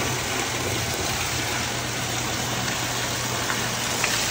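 Steady rush of clean water running from a hose through a rug, over the low, even hum of the pump that draws the water through it.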